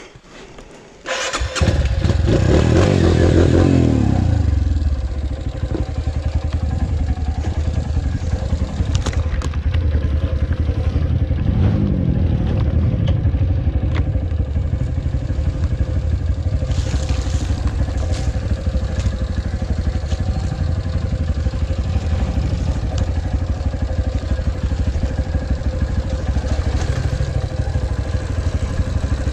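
Dirt bike engine revving hard as it comes in abruptly about a second in, then running steadily under changing throttle, rising and falling in pitch, as the bike rides a forest trail; a few sharp knocks on top.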